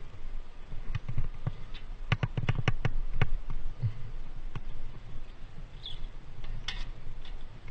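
Sharp clicks and knocks of a climber's carabiners and hands on steel ladder rungs, with a quick run of clinks about two to three seconds in.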